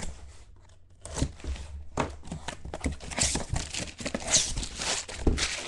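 A taped cardboard shipping case being torn open: packing tape ripping, cardboard flaps scraping, and crumpled packing paper rustling and crinkling as it is handled, in irregular bursts that grow busier in the second half.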